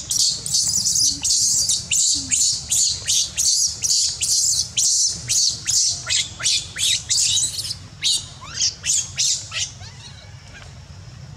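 A baby macaque screaming in distress, shrill cries repeated about three times a second, some sliding down in pitch, stopping about nine and a half seconds in.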